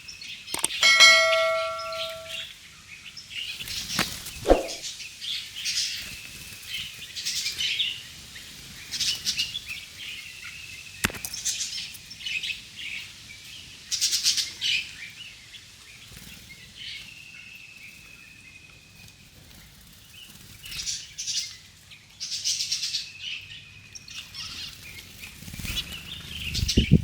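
Small birds chirping and twittering in short bursts on and off, with a brief bell-like ding about a second in.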